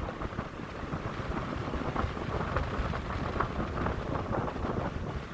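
Strong gusty wind buffeting the microphone, a constant low rumble and rush, with surf from whitecaps underneath.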